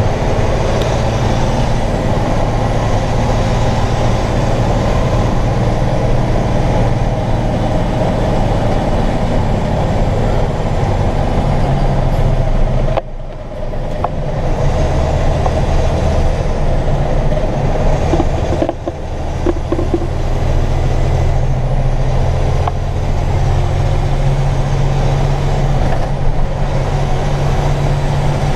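Truck carrying a load of soybeans, its engine running with road noise, heard from inside the cab. The sound drops off briefly twice, about thirteen and nineteen seconds in, and the engine note changes pitch after each drop.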